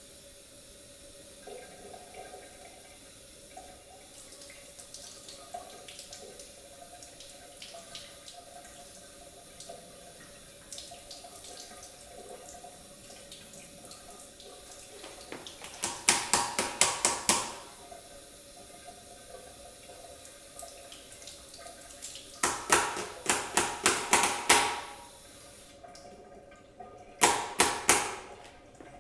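Cold water running from a tap into a sink as a vacuum filter is rinsed. Three bursts of rapid knocks, about five a second, come in the second half; the tap stops shortly before the last one.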